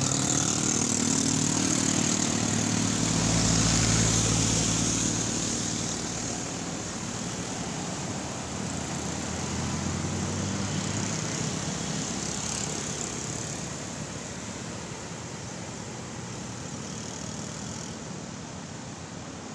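A motor vehicle's engine running close by with a low, steady hum, loudest about four seconds in and fading away by about eleven seconds. A steady rushing noise lies beneath it.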